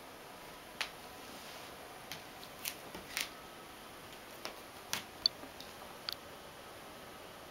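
Scattered light clicks and ticks over a steady faint hiss, about ten of them in quick, uneven succession, the sharpest about five seconds in.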